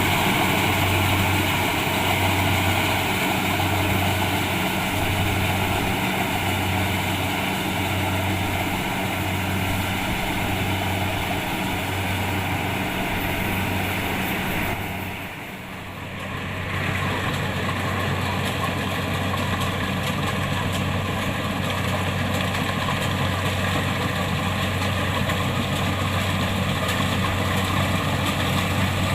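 Kubota DC-70 Plus rice combine harvester running steadily under its diesel engine, with a low hum that pulses evenly at first. The sound dips briefly about halfway through, then runs steadily again.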